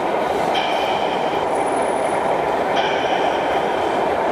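Model diesel locomotive and its wagons running along a model railway layout over a steady background din. A thin high squeal comes and goes twice.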